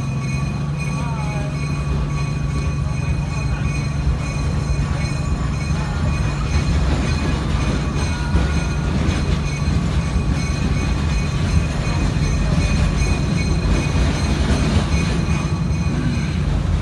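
Passenger train running, heard from aboard: a steady low drone over the rumble of wheels on the track, getting a little louder about six seconds in.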